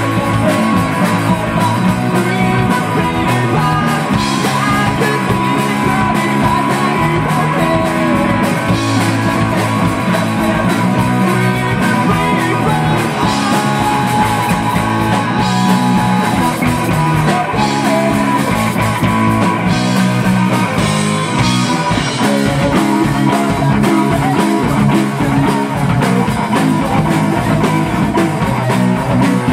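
Live rock band playing loud: electric guitar, bass guitar and a drum kit keeping a steady beat, with a male singer.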